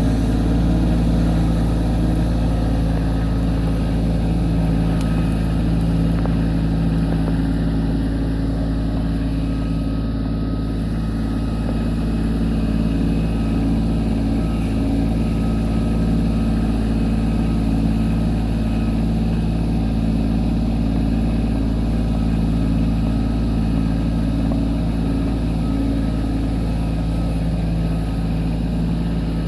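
Kubota B2601 compact tractor's three-cylinder diesel engine running at a steady speed.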